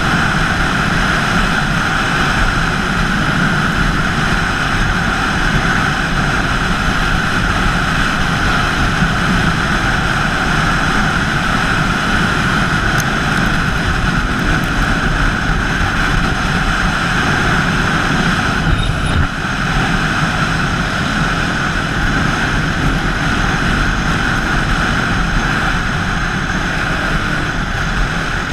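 Dirt bike engine running steadily while riding across sand, heard from a helmet-mounted camera with steady wind noise over the microphone.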